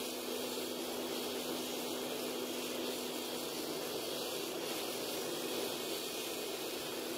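Gas-fired pot forge running: the burner gives a steady rushing hiss with a constant low hum underneath.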